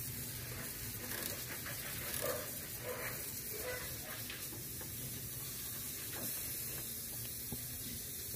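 Faint clicks and scrapes of a ratchet wrench with a 10 mm socket turning out a bolt, over a steady background hiss.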